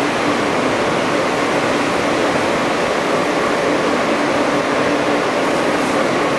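Steady interior noise of an R160 subway car: an even rush with a faint low hum and no breaks.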